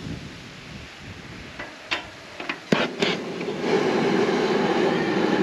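Gas jet burner being lit: a few sharp clicks, then about two-thirds of the way in the flame catches and the burner runs with a loud, steady rushing under the pot.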